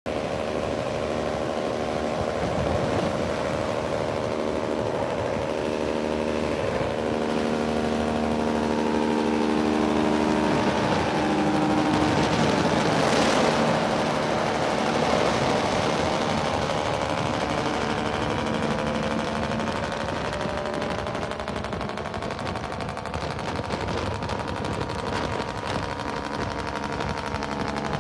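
Semi-truck diesel engine with its Jake (engine compression) brake on, a rapid staccato popping over the engine note as the truck slows. The engine pitch shifts several times, and it is loudest about halfway through.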